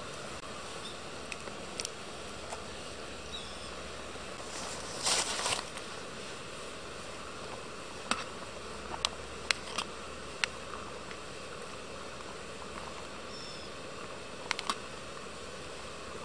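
Steady hiss of a gas canister stove burning under a Kovea Alpine Pot Wide, with the water boiling inside. There is a brief louder rush about five seconds in, and a handful of sharp clicks of a utensil against the pot from about eight seconds on.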